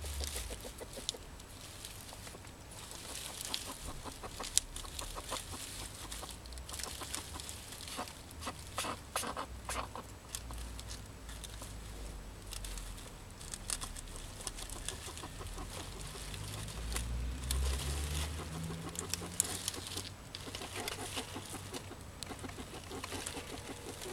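Domestic chickens clucking softly, among many scattered short clicks and rustles.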